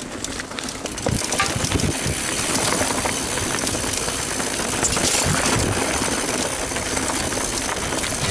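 Mountain bike riding fast down a rocky dirt singletrack: tyres crunching over loose stones and the bike rattling with many small knocks, under steady wind noise on the camera microphone.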